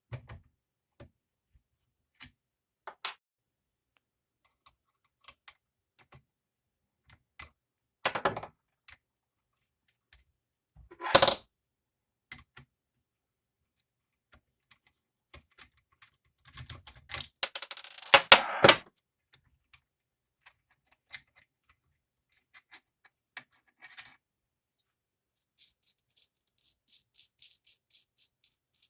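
Scattered clicks and clatter of hand tools and small hardware being handled while a potentiometer is removed from an amplifier chassis. There is a sharp knock about 11 seconds in, a dense stretch of rattling and clatter a little after halfway, and a quick run of light ticks near the end.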